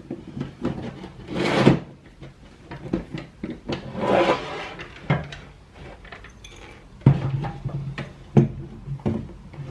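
Skate tool tightening the nuts on a skateboard truck's mounting bolts: irregular metal clicks and knocks, with longer scraping noises about a second and a half in and again around four seconds.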